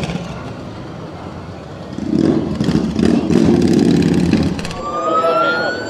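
Motorcycles passing on the road, engines revving, loudest in the middle. Near the end an emergency vehicle's siren starts wailing upward.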